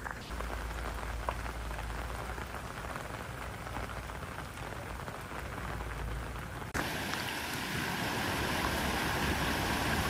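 Heavy rain falling steadily. About two-thirds of the way in, it cuts abruptly to a louder, hissier rush of water.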